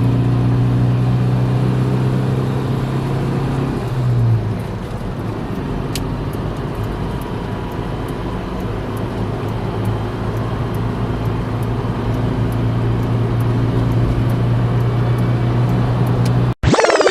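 A steady low droning hum, like an engine running, that swells and drops a little in pitch about four seconds in, then holds steady and cuts off suddenly near the end.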